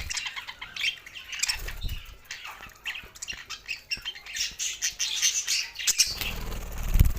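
Budgerigars chattering, with rapid high chirps and squawks throughout and a low rumble building near the end.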